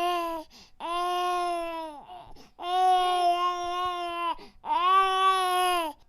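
A baby crying in a string of long wails, each held at a steady pitch for a second or more and dropping off at the end, with short breaths between them.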